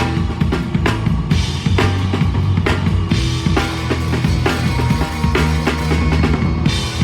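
Live punk rock band playing loud, with the drum kit's kick and snare hitting steadily over a heavy bass low end.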